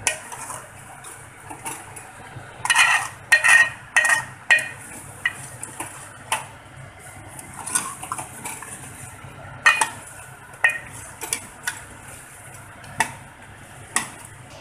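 Long-handled metal spoon stirring thick mutton curry in a metal pot, scraping and clinking against the pot's sides at irregular intervals, with a quick run of clinks about three seconds in.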